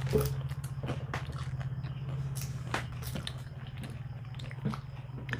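People eating: chewing and biting with scattered short crunches and mouth clicks, over a steady low hum.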